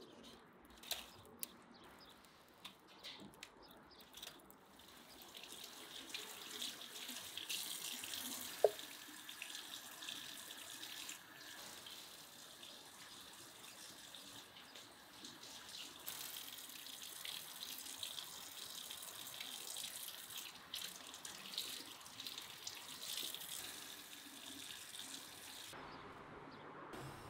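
Kitchen faucet running into a sink as raw chicken pieces are rinsed under the stream, the water splashing off the meat into the basin. A few sharp clicks come in the first few seconds, one brief sharp knock about nine seconds in, and the water stops shortly before the end.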